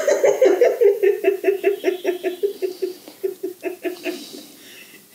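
Human laughter: a long run of rapid giggling pulses, about four to five a second, dying away about four seconds in.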